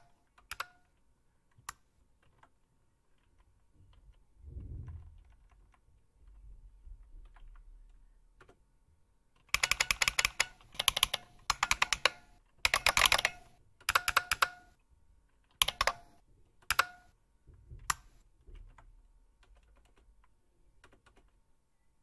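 Bucklespring keyboard emulator playing sampled IBM Model M buckling-spring keystrokes as keys are pressed. A few scattered clacks come first, then a fast run of loud clacks about ten seconds in, followed by several single keystrokes.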